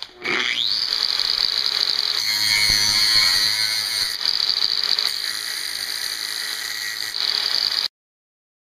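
Electric angle grinder spinning up with a quick rising whine, then running steadily as it grinds a steel knife blank clamped in a vise, a little louder in the middle as it bears into the metal. It cuts off suddenly near the end.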